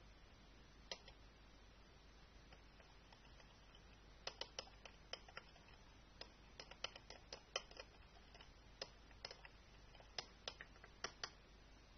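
A string of short, sharp clicks at an uneven pace, one about a second in and a dense run from about four to eleven seconds in, over near silence.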